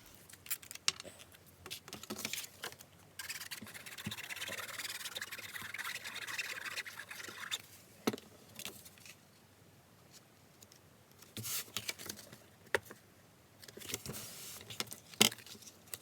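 Paper and card being handled and pressed down on a desk: scattered taps and clicks, with about four seconds of steady scratchy rubbing a few seconds in and a sharp click near the end.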